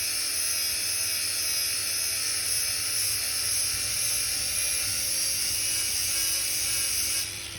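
Power grinder grinding a drum mulcher tooth to sharpen it: a steady, high hissing whine of the wheel on the metal, cutting off abruptly about seven seconds in.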